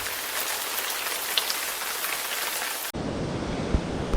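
Heavy rain falling: a steady hiss with a few sharp drop hits. About three seconds in it cuts off abruptly and gives way to a lower rushing noise with a few low thumps.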